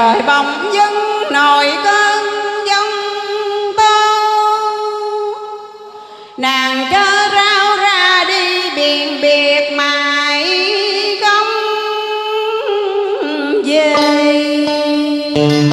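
Vietnamese tân cổ song: a singer, most likely female, sustains long wavering notes over accompaniment. The music drops away briefly about six seconds in and then resumes.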